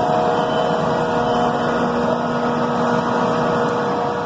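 A machine running steadily: a loud even rush with a constant hum, fading out near the end.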